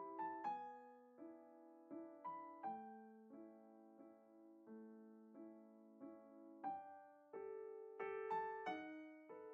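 Background piano music: slow, gentle notes and chords, each struck and left to fade.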